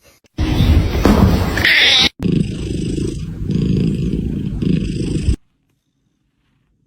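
A cat vocalising: first a loud, harsh sound for about a second and a half that rises in pitch near its end, then a low, purr-like rumble for about three seconds that cuts off suddenly about five and a half seconds in.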